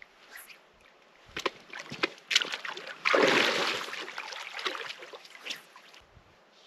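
Shallow water sloshing and splashing around wading boots, preceded by a few sharp knocks, likely stones shifting underfoot. The splash starts suddenly about three seconds in, is the loudest sound, and fades over about two seconds.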